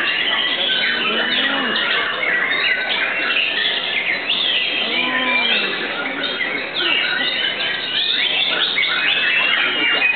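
Several white-rumped shamas (murai batu) singing at once: a dense, unbroken tangle of overlapping whistles, trills and chirps.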